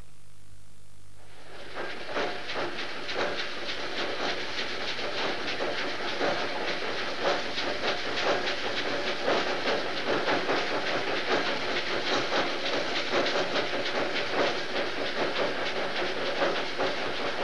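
Drilling rig floor machinery running, with dense, continuous metallic clattering and hiss. It starts about a second and a half in, after a faint hum.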